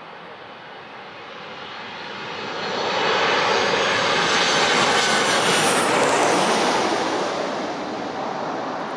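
An airliner on final approach to land passes low overhead: its engine noise swells over the first few seconds, peaks around the middle with a high whine that drops in pitch as it goes over, then fades.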